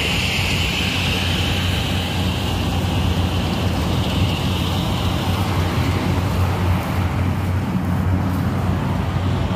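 An engine running steadily, a constant low hum, under a broad rushing noise. A higher hiss fades out about four seconds in.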